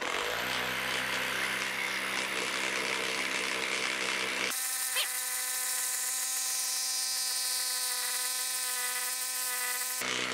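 Skil 12V brushless impact driver hammering as it bores a spade bit through pressure-treated lumber, a steady rattling buzz. About halfway through the sound turns abruptly thinner and higher-pitched, where the run is shown sped up.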